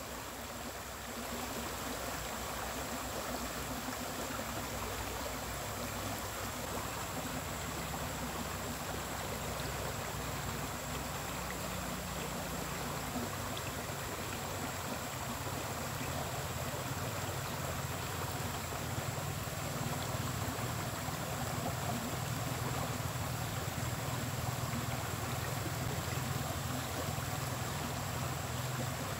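Steady rush of flowing water from a small river, with a thin high tone above it and a faint low hum that grows a little stronger about halfway through.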